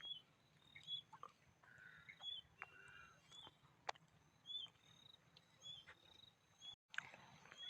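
Faint bird chirps, short and repeated roughly once a second, with a few soft clicks.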